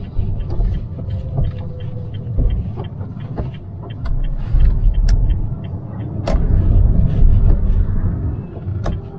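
Honda Brio driving, heard from inside the cabin: a low road and engine rumble that swells and fades, strongest about halfway through and again in the later part, with scattered short clicks and knocks.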